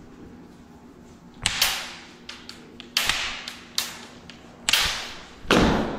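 Wooden practice swords clacking together in a series of sharp knocks, about eight in four seconds, the loudest near the end, as one blade strikes the other aside in the kendo repelling (haziki) technique.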